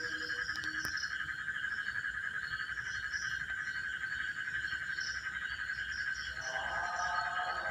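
Steady night-time animal chorus: a continuous high drone with scattered higher chirps over it. About six and a half seconds in, lower steady tones join in.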